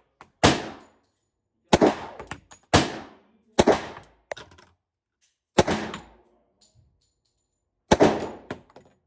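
Six pistol shots from an AMT Hardballer Longslide .45 ACP, each a sharp report with a short ringing tail. The first four come about a second apart, followed by a pause and then two more. The sound is muffled because the camera is hidden.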